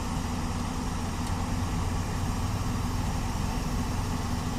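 Heavy diesel engine of earth-moving machinery running steadily under load as an excavator works to drag a stuck wheel loader free.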